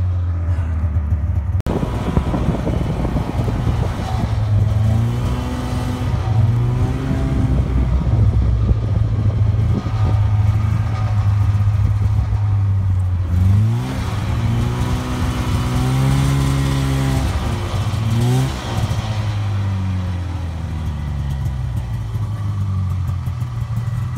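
Snowmobile engine running under way, a steady drone whose pitch rises and falls several times as the throttle opens and eases.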